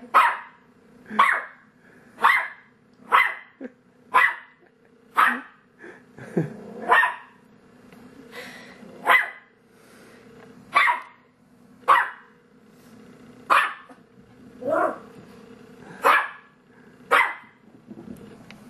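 Dachshund barking in single sharp barks, about one a second, some more widely spaced in the second half: alarm barking at its own reflection, which it takes for another dog.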